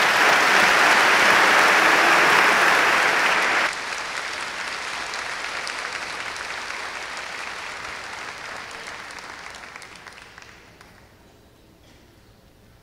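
Audience applauding: loud clapping that drops suddenly about four seconds in, then dies away over the next several seconds.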